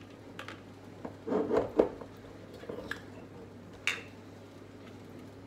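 A metal spoon clinking in a plastic measuring jug while glass sauce bottles are handled and set down on a countertop: scattered knocks and clinks, a cluster of them about a second and a half in, and a sharp, briefly ringing clink near four seconds.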